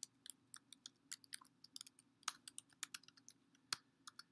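Typing on a computer keyboard: a quick, irregular run of faint key clicks, about five or six a second.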